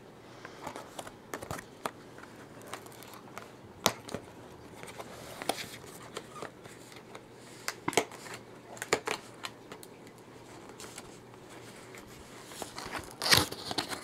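Cardboard product box being handled and opened by hand: scattered rustles and scrapes with sharp clicks of the card flaps, and a louder cluster of crinkling clicks near the end.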